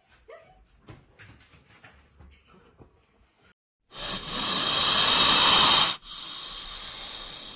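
Faint scattered clicks and taps, then about four seconds in a loud steady hiss starts. It breaks off sharply about two seconds later and resumes somewhat quieter for another two seconds.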